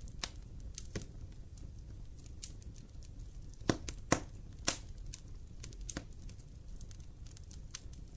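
Wood fire crackling in a fireplace: scattered sharp pops and snaps at irregular intervals over a low, steady rumble of the flames, with three louder pops close together near the middle.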